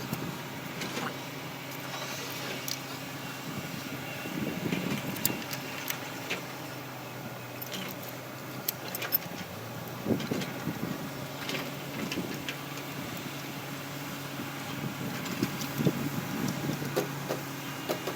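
Steady hum of a running engine, with scattered clinks and knocks of hand tools on metal as bolts are worked on.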